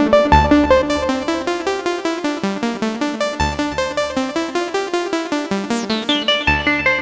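Korg Minilogue XD synthesizer playing a fast repeating sequence of notes, about five or six a second, over a deep bass note that changes about every three seconds. About six seconds in, a bright sweep falls down through the treble.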